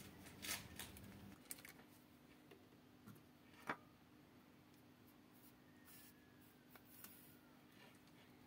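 Near silence: room tone with a faint steady low hum and a few faint sharp clicks, the clearest about three and a half seconds in.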